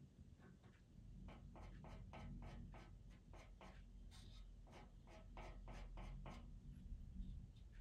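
Pastel pencil scratching on Pastelmat paper in a run of short, quick strokes, about four a second, starting about a second in and stopping near the end: flicking in fine hairs.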